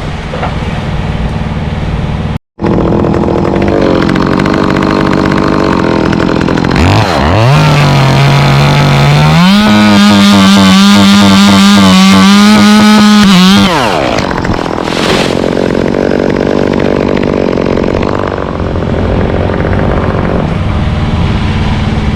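Two-stroke chainsaw engine running. About seven seconds in it revs up and is held at full throttle for about four seconds, as for a cut, then drops back to a lower, rougher running note. A brief dropout comes about two and a half seconds in.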